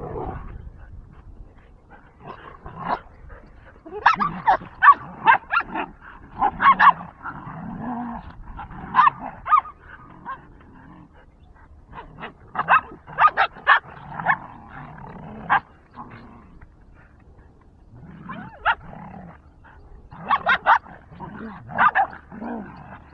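Dogs play-fighting, barking and growling in several short flurries with brief lulls between them.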